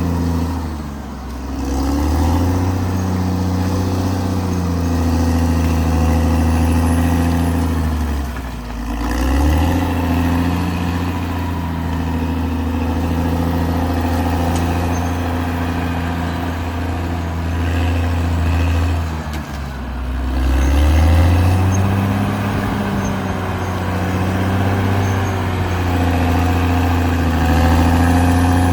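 Caterpillar D6R XL bulldozer's diesel engine running hard as it works the soil. The engine speed dips and recovers three times.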